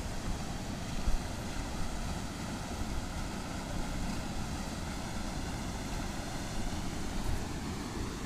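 Wind rumbling on the microphone over the steady rush of water from a small river waterfall and rapids.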